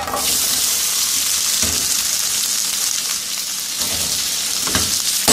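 Diced potatoes sizzling in hot melted butter in a metal frying pan, the sizzle starting suddenly as they go in and then running steadily, with a few light clicks as more cubes drop in.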